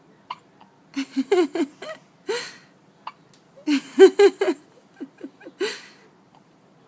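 A baby hiccuping: short squeaky hiccups a couple of seconds apart, mixed with two runs of quick laughter.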